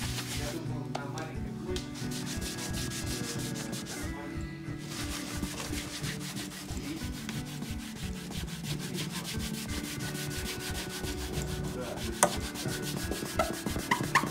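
A rag rubbing back and forth in quick strokes over an oiled wooden parquet floor, wiping test spills off the finish. There is a single sharp click about twelve seconds in.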